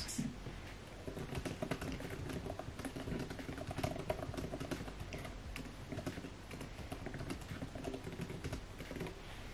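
Fast typing on a 2020 MacBook Air's scissor-switch keyboard: a quick, uneven stream of light key clicks.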